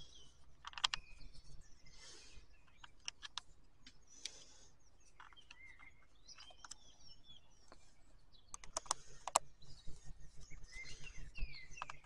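Small clicks and taps of hands handling the plastic housing and a small screw of a Stihl MSA 120 C battery chainsaw as it is reassembled, with a quick run of clicks about nine seconds in. Birds chirp faintly throughout.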